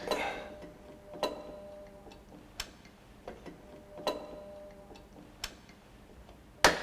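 Sharp metallic clicks, each with a short ringing tone after it, about every second and a half, with fainter ticks in between.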